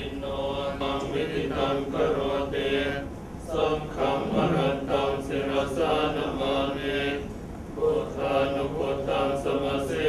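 Buddhist chanting: a steady recited Pali chant by voices, with short breaks between phrases.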